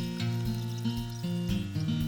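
Background music: a melodic instrumental track with notes changing a few times a second.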